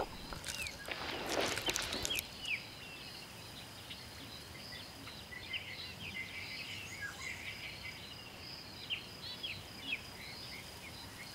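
Natural bush ambience: many birds calling in short, quick chirps over a steady high-pitched insect drone. A burst of rustling noise sounds about a second in.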